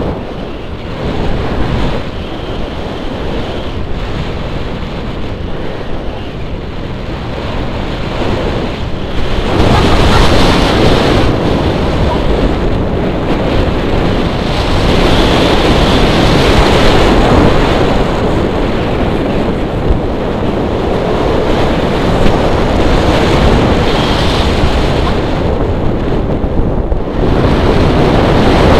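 Airflow buffeting the microphone of a camera carried on a paraglider in flight: a steady rushing rumble that gets louder about nine seconds in and stays loud.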